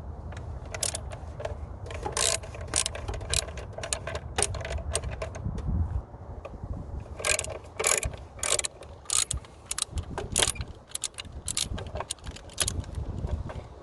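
Ratchet with a 10mm socket clicking in short, irregular runs as the engine cover's screws are backed out.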